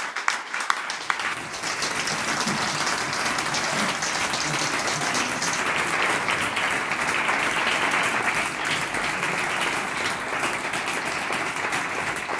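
Audience applauding: separate claps at first, merging after a second or so into steady, dense applause.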